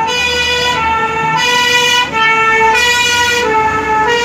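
Emergency vehicle siren sounding close by, alternating between two tones about every two-thirds of a second.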